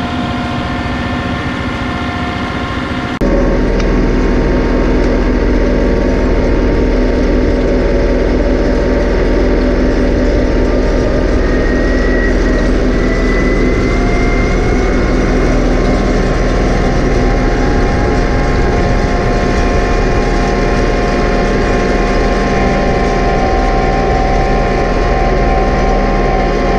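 John Deere 2038R compact tractor's three-cylinder diesel running steadily under load while pulling a chain drag harrow across pasture, with a rattling clatter from the harrow. The sound gets louder and deeper about three seconds in.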